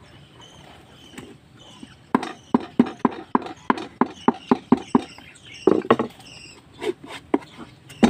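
Claw hammer driving a nail into a plywood box, a quick run of about a dozen blows starting about two seconds in, then a few slower, spaced blows near the end.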